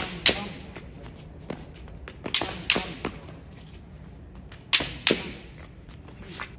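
Shinai strikes in kendo basic striking practice: about six sharp cracks of a shinai hitting a held shinai, coming in quick pairs and threes.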